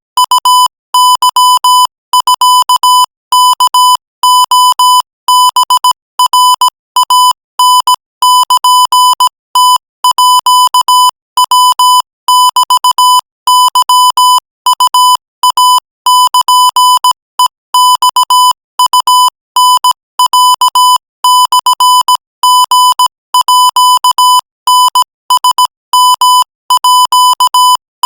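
Morse code sent at 20 words per minute as a single steady-pitched beeping tone, keyed on and off in short dots and longer dashes with brief gaps between letters and words.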